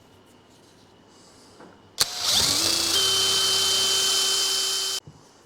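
Power drill boring a hole through a plastic cover. It starts about two seconds in with a rising whine as it spins up, runs steadily for about three seconds, then stops abruptly.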